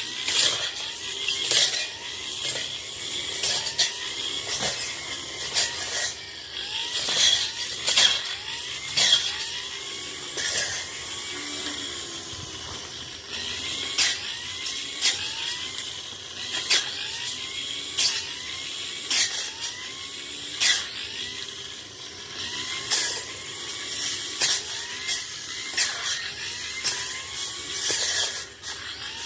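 Tanzu brush cutter cutting through overgrown brush, its engine revving up and easing off about once a second as it swings. Sharp clicks and snaps come from the cutting head striking stems.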